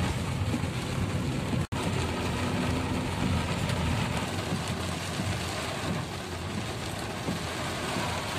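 Heavy rain on a moving car, heard from inside the cabin as a steady noise over the low rumble of the engine and wet tyres. The sound drops out for an instant just under two seconds in.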